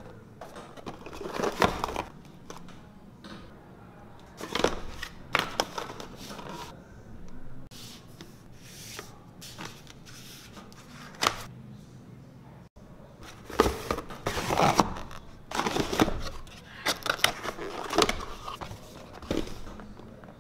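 Cardboard camera box and paper booklets being handled: rustling, sliding and soft knocks in irregular bursts with short pauses between.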